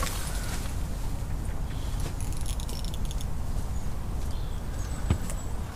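Wind buffeting the microphone as a steady low rumble. About two seconds in there is a short burst of rapid metallic clicking from the fishing reel as it is handled, and a single sharp knock about five seconds in.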